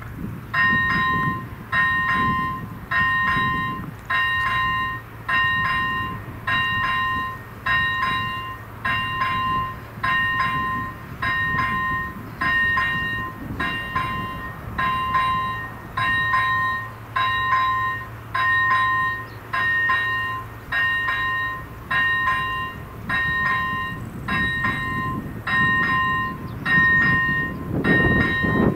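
Electronic ZV-01 level-crossing bell starting up and ringing steadily, about one two-tone ding a second, as the crossing's warning lights start flashing for an approaching train. Near the end a low rumble builds beneath it, the approaching train.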